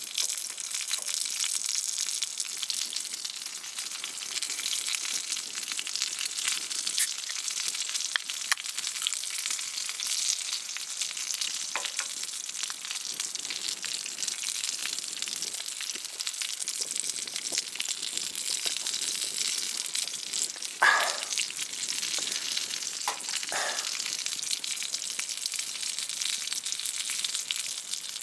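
Sirloin steak sizzling on a hot pan over a campfire: a steady sizzle with scattered small crackles. Two short squeaky sounds come about three-quarters of the way through.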